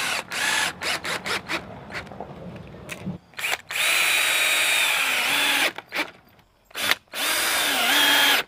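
Cordless drill driving 2-inch deck screws into a 2x4: a series of short trigger bursts, then two longer runs of steady motor whine. The pitch sags near the end of each run as the screw bites into the wood.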